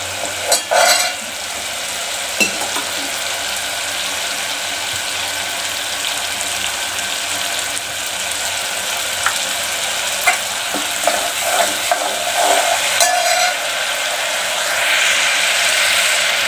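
Masala paste sizzling and bubbling in oil in an aluminium pot as its water cooks off and the oil separates on top. A steel ladle clinks and scrapes against the pot about a second in, and there are a few more light clicks and knocks in the second half.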